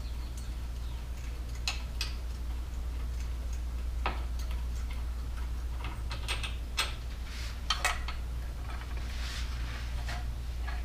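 Scattered light clicks and taps of a wrench and motorcycle parts being handled during the headlight removal, irregularly spaced, over a steady low hum.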